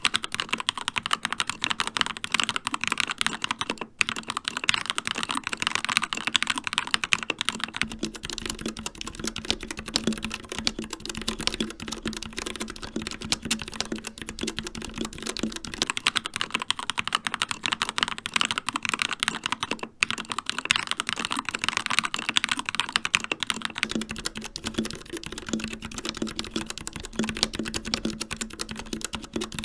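Continuous fast typing on mechanical keyboards with linear red switches, taking turns about every eight seconds: a Keychron K2 with Gateron Red switches, then a Royal Kludge H61 Plus with RK Red switches.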